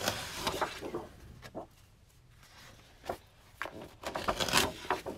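Large sheets of 12x12 scrapbook paper being handled, sliding and rustling against each other, with a couple of light taps in between; the loudest rustle comes a little past four seconds in.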